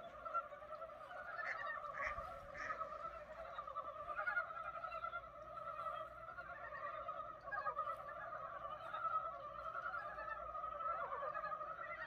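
Early-spring chorus of many frogs calling over one another, a continuous rapid chattering.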